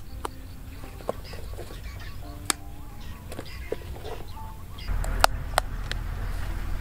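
Sharp snaps and clicks of green lotus seed pods and stalks being picked and broken open by hand, with short honking fowl calls in the background. From about five seconds in a low rumble like wind on the microphone comes up.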